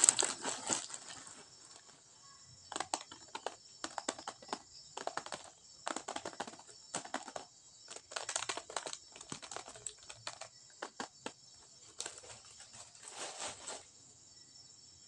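Plastic packaging and a plastic bag crinkling and rustling in short, irregular bursts as items are handled inside a cardboard box. The loudest burst comes right at the beginning.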